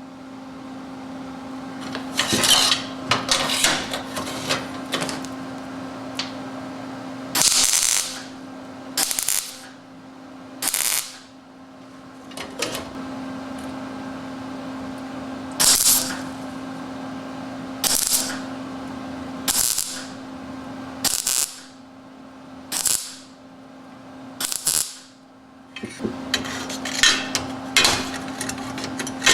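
A shop machine running with a steady hum, with short harsh bursts every second or two as a part is worked against it.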